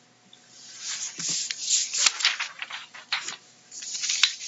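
Irregular clicks and rustling handling noise at the CNC control's keyboard, starting about half a second in and going on in uneven bursts.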